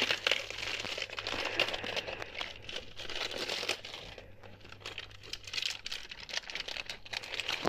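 Thin clear plastic wrapping crinkling as it is pulled off a pack of plastic slime tubs by hand, a continuous irregular crackle.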